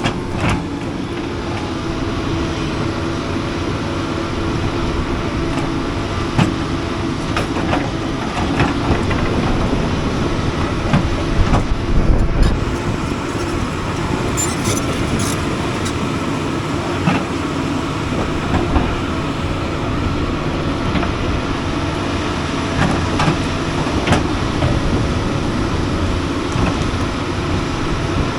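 Doosan excavator's diesel engine running steadily under load, with scattered sharp clanks and knocks as the machine digs.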